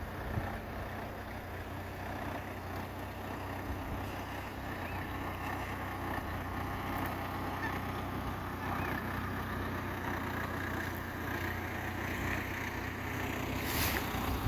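Riverside ambience: a steady low rumble with a few faint waterbird calls, and one short burst of noise near the end.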